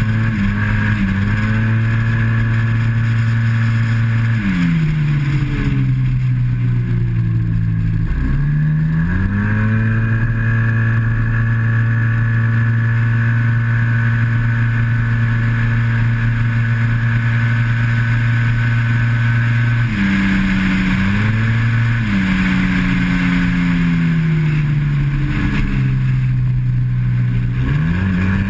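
Yamaha TMAX maxi-scooter's parallel-twin engine at full throttle, its CVT holding the revs at one steady pitch along the straights. The pitch drops as the throttle closes for corners about four, eight, twenty and twenty-seven seconds in, then climbs back to the same steady note.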